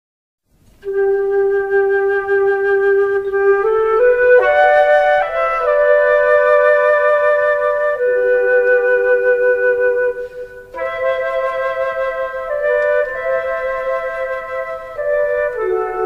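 Background music: a slow melody of long held notes, starting about a second in.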